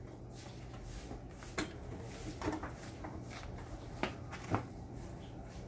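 A few scattered light knocks as a small child punches a free-standing punching ball on its pole stand, over a faint steady hum.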